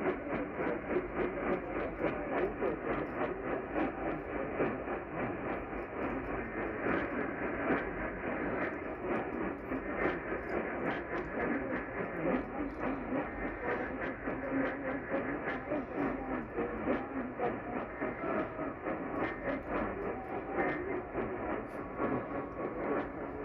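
Radio static: a steady hiss with scattered crackles from a weak off-air radio reception, with no treble above the mid range.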